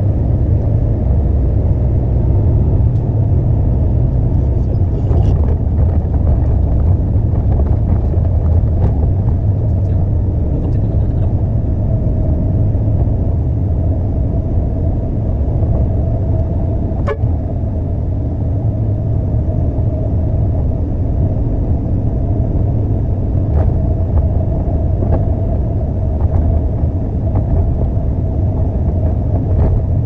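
Concrete mixer truck's diesel engine running with a steady deep rumble. A steady whine grows clearer about twelve seconds in, and there is a single sharp click about seventeen seconds in.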